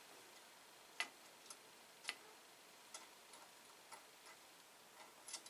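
Faint, irregular small clicks and ticks of bolts, nuts and an aluminium lug bracket being handled and fitted to a drum shell, a click every half second to a second over near silence.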